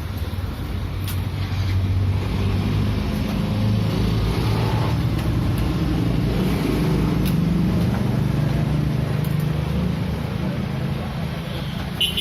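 A motor vehicle engine running close by, a low drone that grows louder about two seconds in and shifts in pitch as it goes. A brief sharp sound comes near the end.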